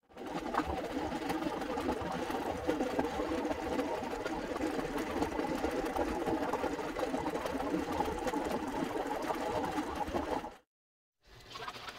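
Eggs boiling hard in a stainless steel pot: steady bubbling and rapid rattling of the eggs against the pot and each other. It cuts off suddenly near the end.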